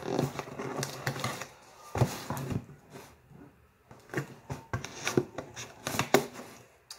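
Scissors cutting through the cardboard of a toy box, in a run of irregular snips and scrapes.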